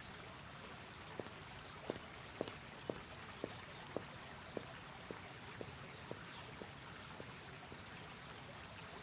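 High-heeled shoes clicking on a hard floor as a woman walks away, about two steps a second, growing fainter until they stop about seven seconds in, over a faint steady hiss.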